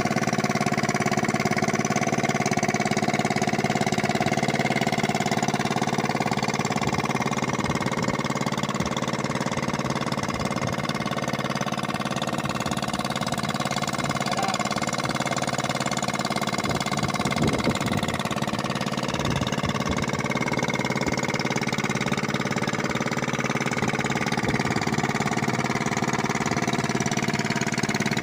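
Boat engine running steadily at a constant speed with an even, unbroken hum.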